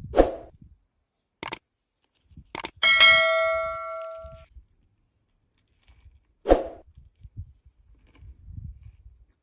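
Knocks and clicks, then a metal object struck once that rings out with a bell-like tone for about a second and a half, followed by another sharp knock.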